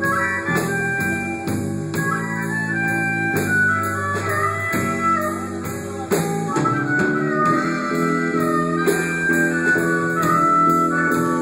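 Music: a band with guitar and drum kit playing to a steady, quick beat, with a melody line over held chords.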